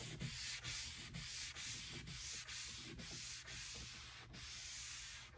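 A cloth rag rubbed over a stripped wood tabletop, working wet whitewash across the grain's surface in repeated strokes about twice a second, a soft hissing scrub.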